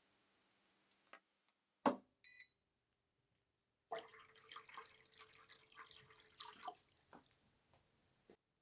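Faint small workshop handling sounds: a sharp click, a short pitched blip, then about three seconds of irregular rattling and rubbing over a faint steady hum that cuts off abruptly.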